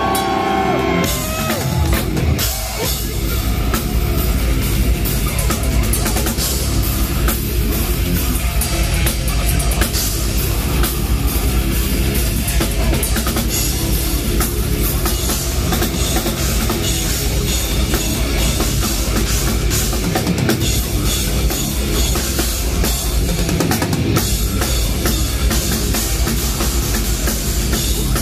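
Live heavy metal band playing loud and fast: pounding drum kit with distorted guitars and bass, the full band coming in about a second and a half in.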